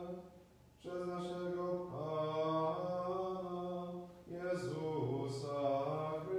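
A man's voice chanting slowly in long held notes, with sung words. There is a short breath pause about half a second in.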